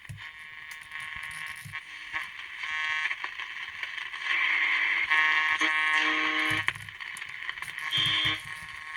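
Crown TR-680 transistor radio's small speaker putting out static and a buzzing, many-toned interference hum that swells and fades several times: noisy reception which the owner puts down to a computer monitor just switched on nearby.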